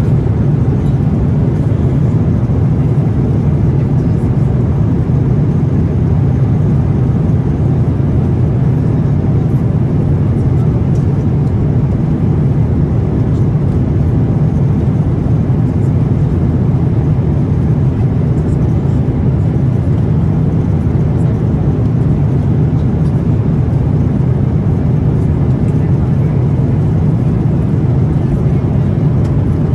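Steady cabin noise inside a Boeing 777-300ER: the engines and the rush of air over the fuselage, a constant low rumble that does not change.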